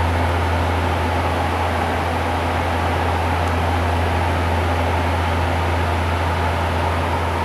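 Bombardier Q400 in flight heard from inside the cockpit: its Pratt & Whitney PW150A turboprops and six-bladed propellers make a deep, steady hum under a constant hiss of airflow, with no change in pitch or level.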